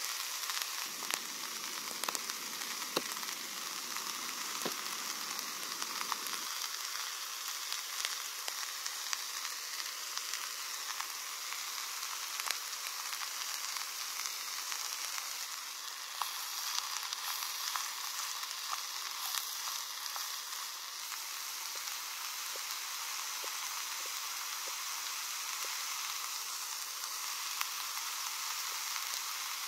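Food sizzling steadily in a small pot on a backpacking gas stove, with scattered light clicks and taps as a knife slices food against a wooden log.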